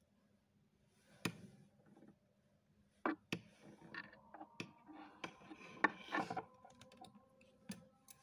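Steel surgical instruments (needle holder and forceps) clicking and tapping as a suture is worked, with rustling of the fabric practice pad and thread being drawn through; about seven sharp clicks, scattered unevenly.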